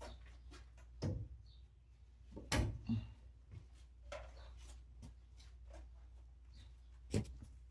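Scattered knocks and clicks from handling copper pipe, fittings and tools: one sharp knock about a second in, two close together near the middle, and another near the end, over a low steady hum.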